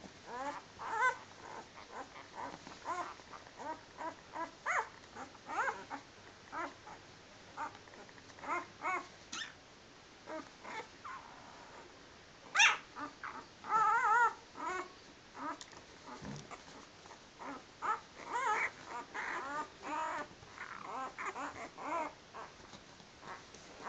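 A litter of week-old puppies whimpering and squeaking in many short cries as they jostle each other, with a run of louder, wavering whines about halfway through.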